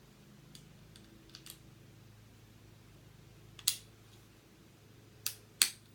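Sharp clicks and clacks as an airsoft gas blowback M1911 pistol's slide is fitted back onto its frame rails. A few faint ticks come first, then three loud clicks, the last two close together.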